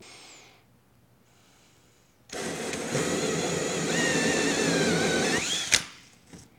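Cordless drill spinning a 3-inch hole saw through an acoustic ceiling tile: it starts suddenly about two seconds in and runs for about three and a half seconds, a motor whine over the rough noise of the saw cutting, the whine rising in pitch just before it stops. A sharp click follows right after.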